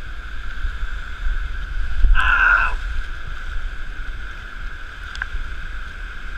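Steady rush of water from the nearby waterfall with a low rumble on the microphone, and one short louder splash or gasp about two seconds in.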